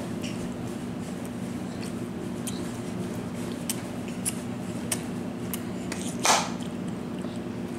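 Children chewing candy: scattered faint mouth clicks over a steady low room hum, with one short hissing burst about six seconds in.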